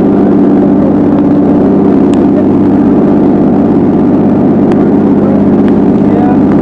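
Boat engine running steadily under way: a loud, even drone that holds without change, with a few faint ticks over it.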